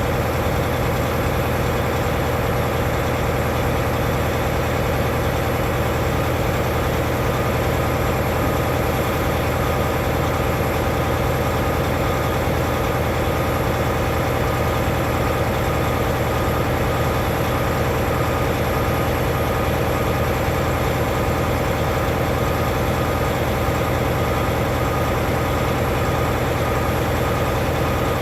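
Heavy diesel truck engine idling steadily, an even unchanging hum.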